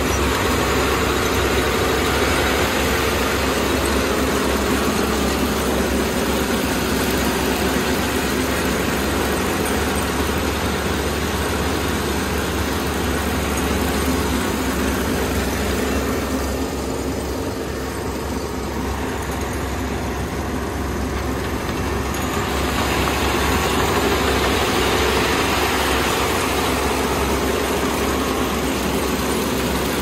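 Kubota ER470 Dynamax Revo combine harvester running while it cuts rice: a steady engine drone with machinery noise, a little quieter and duller for a few seconds just past halfway.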